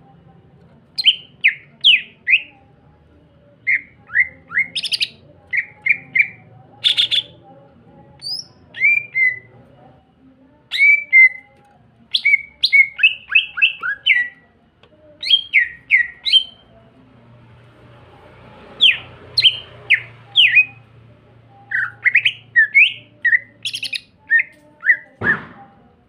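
Caged cucak ijo (greater green leafbird) in full song: bursts of quick, sharp, down-slurred chirps and whistles in rapid phrases broken by short pauses. A brief low thump comes near the end.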